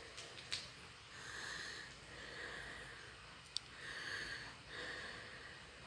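Faint breathing close to the microphone: an in-breath and out-breath about every two and a half seconds, over a faint steady patter of rain. A single sharp tick comes about three and a half seconds in.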